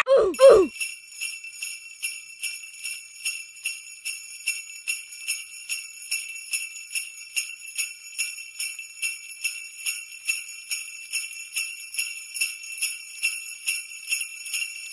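Jingle bells shaken in a steady, even rhythm, a few shakes a second, with no other instrument. A sung note falls away in the first half second.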